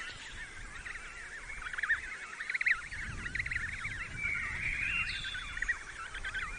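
Many birds calling over one another: a dense chatter of short squawks, with a few longer drawn-out calls mixed in.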